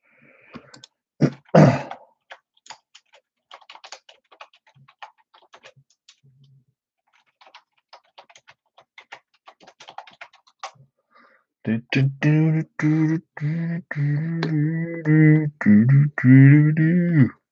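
Soft, quick clicks of computer keyboard typing, with one sharp knock about a second and a half in. From about twelve seconds in, a voice takes over with a wordless rhythmic vocalizing in short repeated notes.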